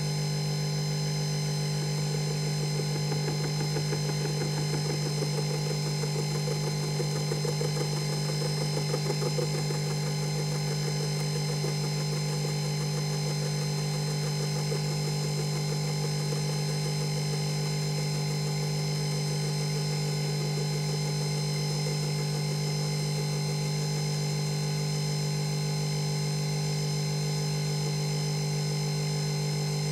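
Emco Unimat 3 mill running with a steady hum as an end mill in its drill chuck takes a decking cut across a small casting. From about two seconds in, for several seconds, a light fine rattle comes from the cutter skimming the casting's boss, a cut so light it barely touches.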